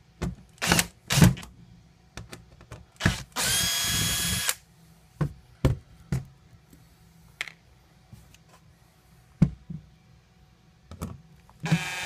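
Cordless drill/driver with a square-drive bit backing screws out of a wooden service panel: short trigger bursts near the start, then one steady motor whine lasting about a second a third of the way in. Scattered clicks and knocks from the bit and handling come between, and the motor starts again at the very end.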